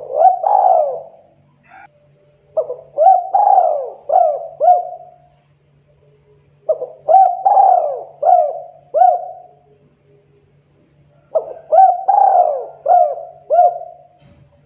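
Spotted dove cooing: four phrases about four seconds apart, each a quick run of several short rising-and-falling coos.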